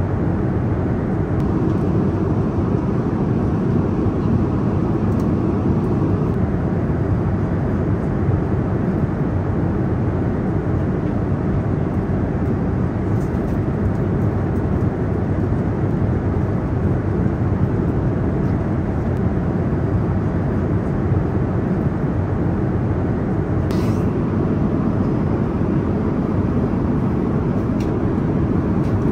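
Steady cabin noise of an Airbus A330-900neo in flight, an even rush of airflow and engine sound. One faint click comes near the end.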